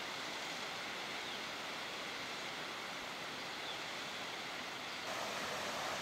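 Waterfall: the steady rush of falling water. It gets a little louder and fuller about five seconds in.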